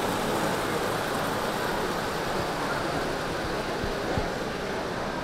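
Steady hubbub of a busy exhibition hall: an even wash of distant chatter and movement, with a few soft low knocks around four seconds in.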